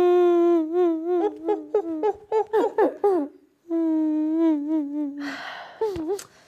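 A woman's play-acted crying: a long wavering wail, broken into short sobbing whimpers, then a second drawn-out wail sinking slightly in pitch, and a loud breathy sniff near the end.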